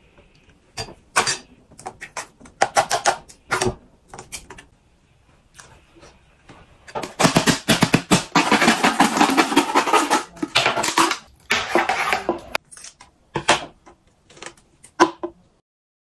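A clear plastic bottle shaken hard and fast for about five seconds, making a dense, rapid rattling clatter. Scattered knocks and clicks of handling come before and after it.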